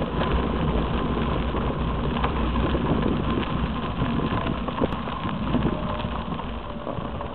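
Riding a bicycle along a gravel path: a steady low wind rumble on the camera's microphone, with tyre noise and scattered small clicks from the gravel.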